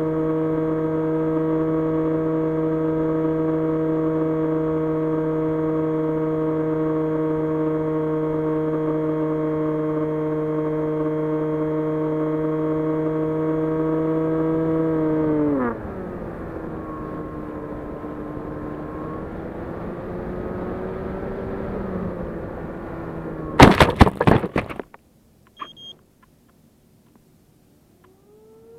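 Brushless electric motor and propeller of an S800 FPV model plane running at a steady high pitch, then throttled back about 15 seconds in so the pitch drops to a lower, wavering whine. About 24 seconds in, a burst of loud knocks, after which the motor falls silent.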